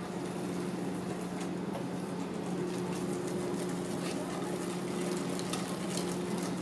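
Wire whisk stirring pancake batter in a stainless steel mixing bowl, with quick light clinks and scrapes of the wires against the metal that come more often in the second half. A steady low hum runs underneath.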